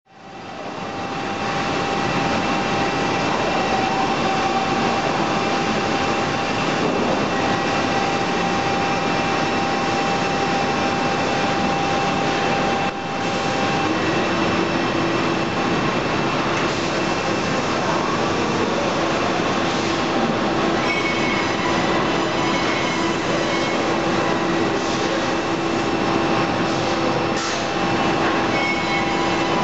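Steady industrial machine noise from a CNC woodworking machining centre and its loading robot running, a dense rush of sound with steady hums. About halfway through, the level dips briefly and a new, lower steady hum sets in.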